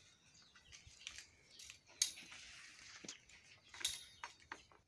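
Metal snake tongs and hook stick clicking and clinking: a few sharp knocks with a high metallic ring, the loudest about two seconds in and again near four seconds, with lighter ticks between.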